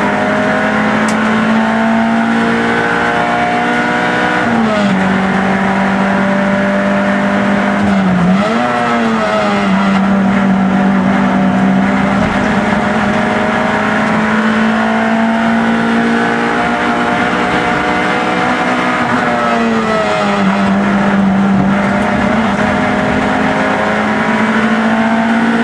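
Peugeot 106 race car's four-cylinder engine heard from inside the cabin, running hard under load. The engine note holds steady for long stretches and drops and picks up again several times, about four, eight and twenty seconds in.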